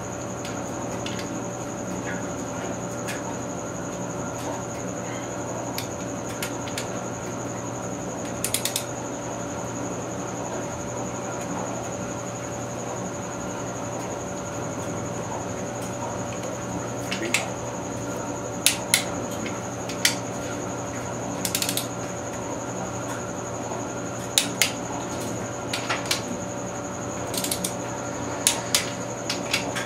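Sharp metallic clicks and clinks of a torque wrench and hand tools as the main bearing cap bolts are tightened, scattered at first and coming more often in the second half. Under them is a steady hum with a faint high whine.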